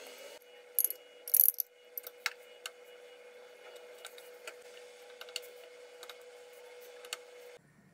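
Wooden spatula spreading jam over a baked cheesecake, tapping and scraping against the glass baking dish in a series of sharp clicks, the loudest about one and a half seconds in. A steady hum runs underneath and cuts off near the end.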